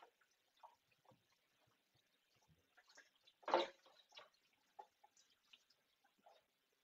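Faint drips and splashes of water at a kitchen sink as sardines are rinsed under a thin stream from the tap, with one louder splash about three and a half seconds in.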